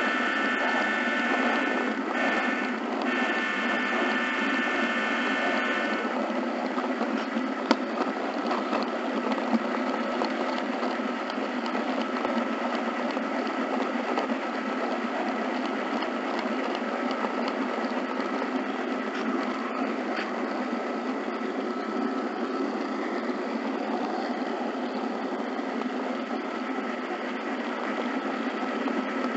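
HO scale model train rolling along the track: the steady running noise of its wheels and gear drive, with a faint steady whine. For about the first six seconds a high tone of several pitches sounds over it, breaking off twice.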